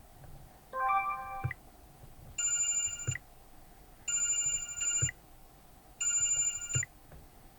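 Sony Xperia 1 V ringtones playing from the phone's speaker. First comes a short melody of a few tones, then a brighter, higher chime phrase repeated three times with short gaps between. Each phrase ends with a faint knock.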